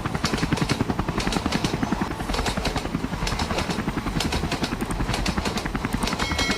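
Helicopter rotor chopping in a fast, steady beat over a low engine drone.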